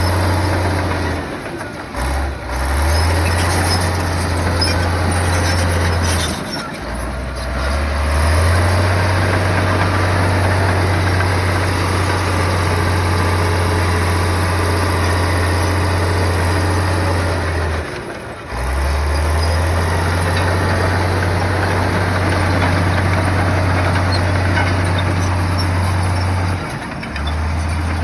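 Diesel engine of a heavy earthmoving machine running steadily under load. Its note dips briefly about two seconds in, again around seven seconds, around eighteen seconds, and near the end.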